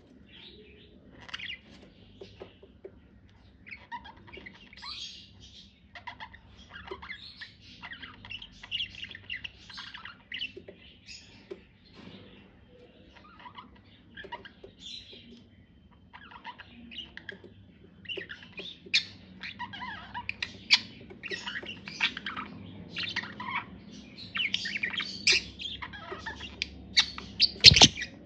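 Budgies chattering and warbling in short, high chirps and squawks, growing busier and louder in the second half, with a sharp knock near the end.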